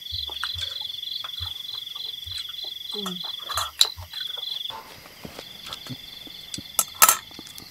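A steady, high-pitched insect trill that breaks off briefly a few times. A few sharp clicks sound over it, the loudest about seven seconds in.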